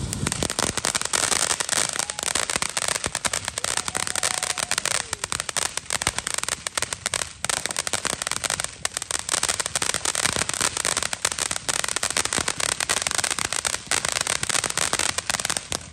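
Ground fountain firework spraying sparks: a continuous loud hiss packed with dense, rapid crackling.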